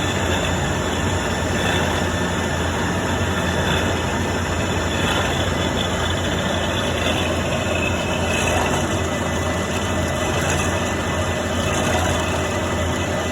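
CNC milling machine running steadily through a finishing pass with a 4 mm ball-nose end mill: a continuous hum and machining noise with faint high tones, unchanging in level.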